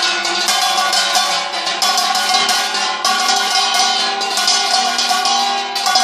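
Festival procession music: fast, steady metallic percussion strikes over held tones.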